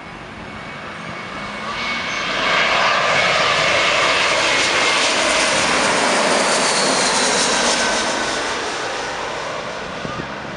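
Airbus A321-200 jet airliner on landing approach, passing low overhead: the engine roar and whine build, are loudest for several seconds in the middle, then fade as it moves away, the whine dropping in pitch as it passes.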